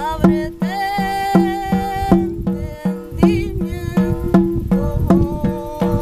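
Shamanic frame drum struck with a beater in a steady beat of about three strikes a second, under a woman's long wordless sung notes that glide and then hold.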